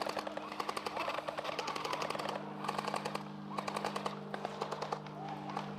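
Airsoft guns firing in rapid full-auto bursts, several volleys one after another.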